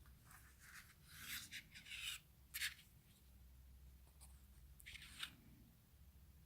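Faint scratching and clicking of small repair tools against the metal and plastic parts of an iPhone 6 display assembly as the home button is fitted. A cluster of short scrapes about a second in, the sharpest near the middle, and a couple more about five seconds in.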